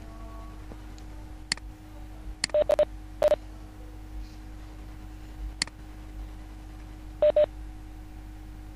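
Short electronic beeps and ticks from a Cisco Webex meeting's call audio, sounding like phone-keypad tones: a single tick, a quick run of four beeps, another tick, then a double beep near the end, over a faint steady hum.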